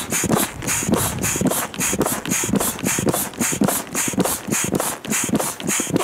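Foot pump being worked fast to inflate the inflatable keel of a PVC boat through a hose: an even rhythm of about three to four strokes a second, each a short hiss of air with a soft knock.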